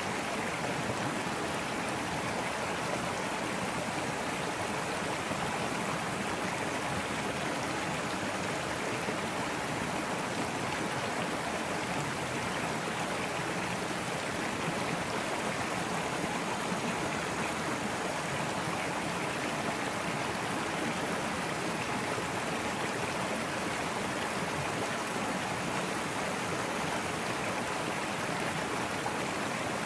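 Small brook flowing and splashing steadily over a low rocky cascade.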